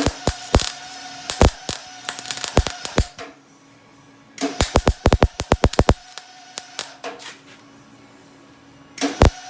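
Electric welding arc crackling and spattering in three short bursts on thin, worn steel of a snowmobile ski, with sharp irregular pops. The metal is so thin that the arc keeps burning through it.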